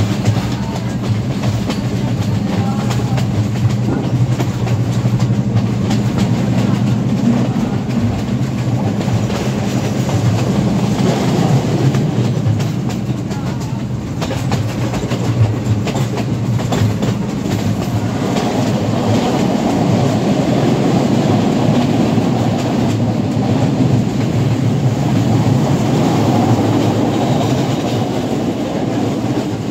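Passenger train running along the line, its carriage wheels clattering over the rail joints, with a steady low drone from the M6 diesel locomotive hauling it, heard through an open carriage door or window.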